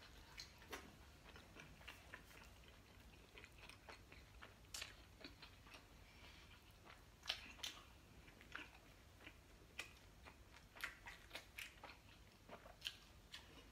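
A person chewing food close to the microphone, with soft, wet mouth clicks and smacks scattered irregularly throughout.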